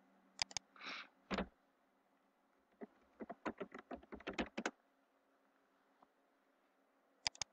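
Typing on a computer keyboard: a quick run of about a dozen keystrokes. Before it come a couple of sharp clicks and a brief rustle, and near the end a quick double click.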